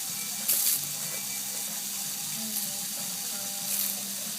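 Water spraying from a hose, a steady hiss with a few brief louder spurts, about half a second in and again near the end.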